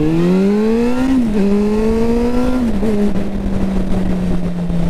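Suzuki GSR 600 inline-four motorcycle engine accelerating through two upshifts: the pitch rises, drops about a second in, rises again, drops a little past halfway, then holds steady at cruise.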